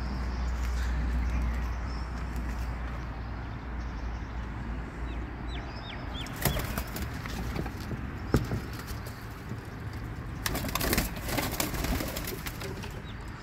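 Pigeons flapping their wings in alarm inside a wire-mesh loft, panicked by a cat that has got in among them. The flapping comes in a dense burst about ten to twelve seconds in; before it come a few short high chirps and a couple of sharp knocks.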